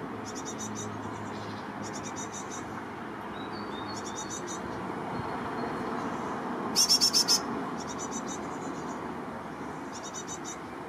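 Great tits calling: short bursts of rapid high notes repeating every second or two, the loudest a run of five notes about seven seconds in, over a steady background hiss.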